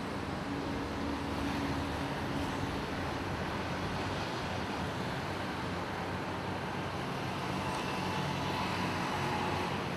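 Steady road traffic noise: a continuous rumble and hiss of vehicles, with faint engine hums.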